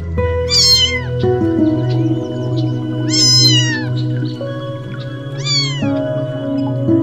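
A cat meowing three times, each meow short and falling in pitch, over background music with long held notes.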